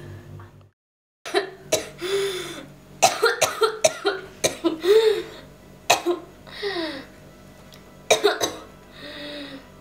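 A woman coughing in repeated fits, with short strained groans between them, acted as a frail, dying old woman.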